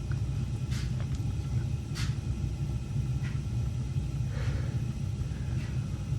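Gas water heater's main burner running, a steady low rumble from the flame, with a few light ticks.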